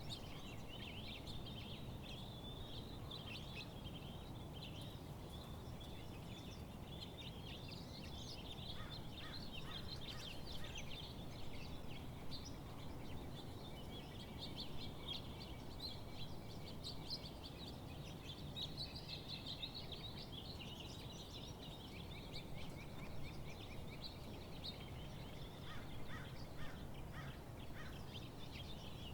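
Songbirds chirping and singing without pause over a steady low hum of outdoor background noise.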